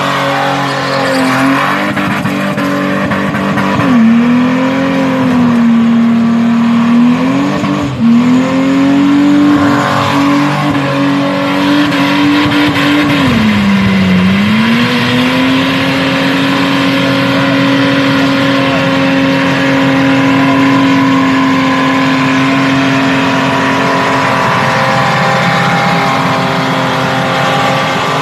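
Car engine held at steady high revs during a burnout, the rear tyres spinning and smoking on the skid pad. The revs drop briefly and climb back three times in the first half, then hold steady to the end.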